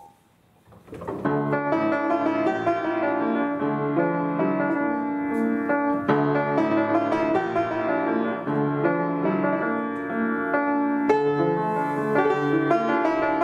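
Upright piano played continuously, a flowing piece of many notes in both hands, starting about a second in after a brief silence.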